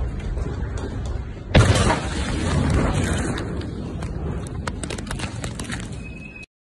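The 2020 Beirut port ammonium-nitrate explosion heard from a nearby building: a steady rumble, then the blast wave arrives as a sudden loud boom about one and a half seconds in. A long rumble follows with many sharp clattering cracks, until the sound cuts off near the end.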